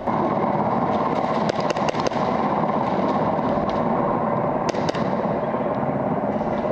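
Airsoft guns firing: several sharp cracks in a cluster about a second and a half in and a pair near five seconds, over a steady, loud rushing noise.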